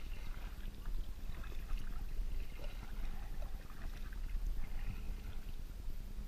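Water lapping and splashing softly against a kayak's hull as it moves along, over a steady low rumble of wind on the microphone.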